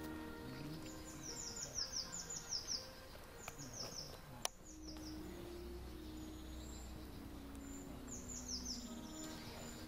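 A songbird singing in runs of quick, high, downward-sweeping notes over soft background music of held chords, with a single sharp click about four and a half seconds in.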